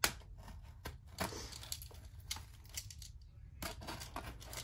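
A knife cutting at a parcel's packaging: a run of short, irregular scrapes and clicks as the blade works through the stubborn wrapping.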